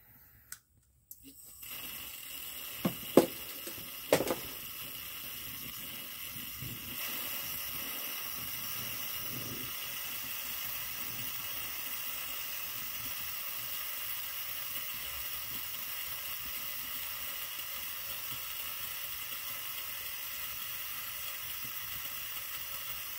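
Coleman 400 liquid-fuel camp stove burner lit and hissing steadily, with a few sharp knocks in the first seconds. The hiss grows slightly louder about seven seconds in. The burner is still warming up after preheating and flares with a yellow flame.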